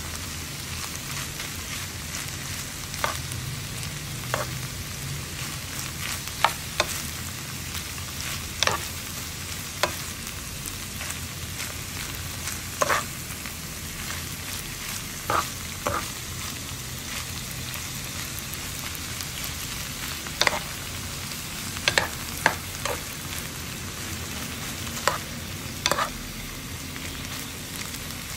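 Sliced bamboo shoots and pork belly sizzling steadily in a frying pan while a metal spoon stirs them, knocking and scraping against the pan every second or two.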